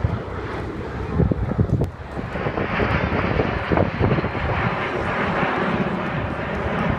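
Engine noise of a formation of display aircraft flying overhead: a steady rushing roar that builds and grows louder about two seconds in.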